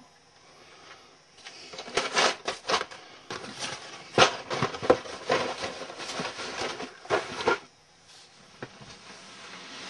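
Rummaging through model car kits in a cabinet: a run of irregular rustles, clicks and knocks as kit boxes and plastic parts are handled. It goes quiet about three-quarters of the way in, apart from a single click.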